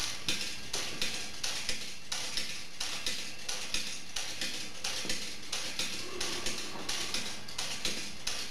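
The Victor phonograph spring motor of a wind-up kinetic sculpture turning a spindle, whose little spinning hammer taps in a steady, quick rhythm of about two or three ticks a second, over a light mechanical hiss.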